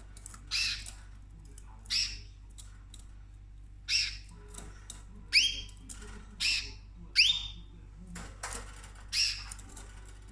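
Cockatoo giving short, sharp whistled calls, about eight spread over ten seconds, several sweeping up and then holding a steady high note.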